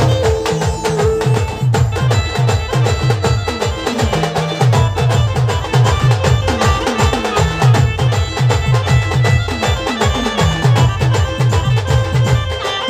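Band music: a keyboard melody over fast, dense drumming, with repeated low drum hits that drop in pitch.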